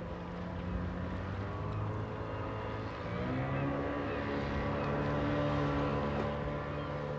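Small outboard motor on an open boat running, its pitch rising about three seconds in as the boat speeds up and moves off, then holding steady.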